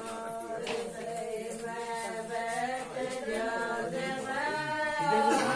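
Voices chanting in long, drawn-out sung notes that bend slowly in pitch, a ritual chant during a wedding ceremony, growing a little louder near the end.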